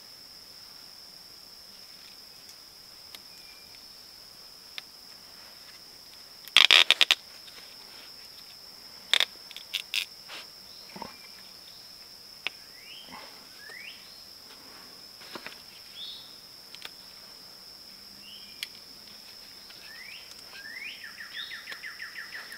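Steady high-pitched drone of insects calling, with a quick run of sharp clicks about seven seconds in and a few more single clicks and taps from working a cord whipping on a wooden stick. Short rising bird chirps come several times in the second half.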